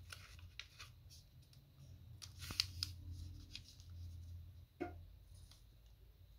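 Origami paper rustling and crackling under fingertips as a fold is pressed and creased flat, with a louder cluster of crinkles about two and a half seconds in and a brief one near five seconds, over a faint low hum.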